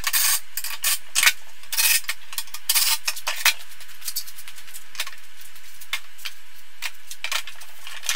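Metal tools and small hardware clinking and rattling on a wooden workbench as a wagon's side panels are fastened: a busy run of sharp clicks for the first few seconds, then scattered light ticks.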